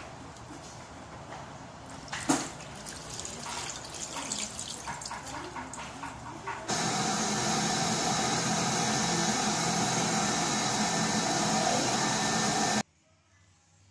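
Hands being washed with splashing water at a washroom sink, then an electric hand dryer switches on about seven seconds in, blows steadily for about six seconds and cuts off suddenly.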